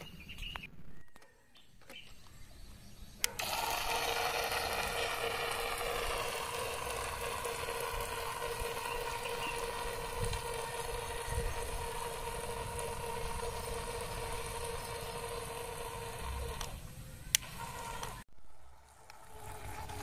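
Cheap toy remote-control speedboat's small electric motor and propeller running at speed, a steady high whine over a hiss of water, sinking slightly in pitch. It starts suddenly about three seconds in and stops suddenly a few seconds before the end.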